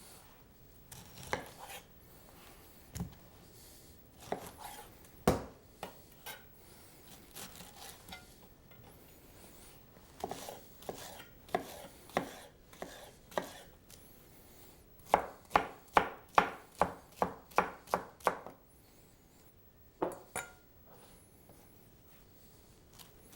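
A knife chopping fresh pineapple on a cutting board. Scattered single cuts come first, then a quick run of about ten chops, about three a second, and two more near the end.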